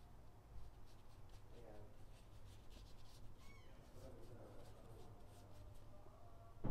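Faint scratchy strokes of a small paintbrush on paper, a run of short soft ticks in the middle, over a low steady hum.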